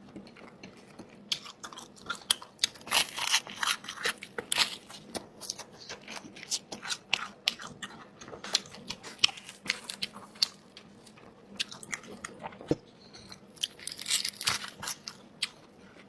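Crunching and chewing of crispy fried duck skin close to the microphone: a long run of sharp, irregular crunches in clusters, with a few short lulls between bites.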